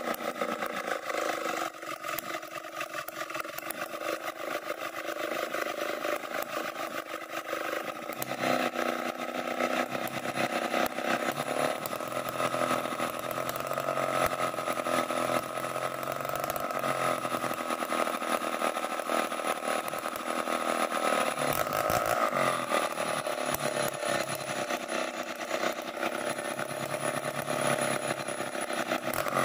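Two-stroke chainsaw running under load as it rips lengthwise along a felled damar log. Its engine note rises about eight seconds in and wavers through the rest of the cut.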